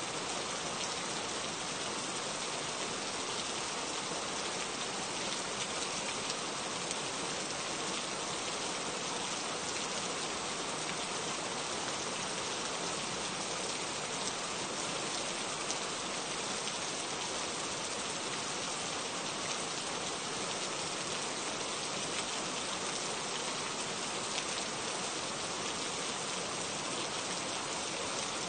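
Steady rain falling, a dense, even patter of drops with no thunder.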